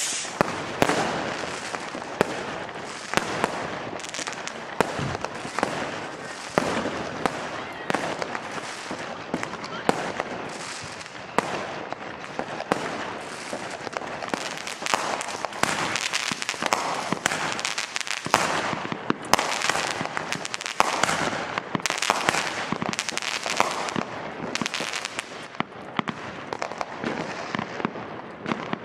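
Many fireworks and firecrackers going off at once: an almost unbroken crackle of overlapping bangs and pops, with louder single bangs standing out every second or so.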